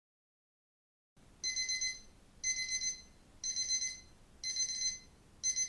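Mobile phone alarm beeping: after about a second of silence, a high electronic beep pattern repeats about once a second, five times.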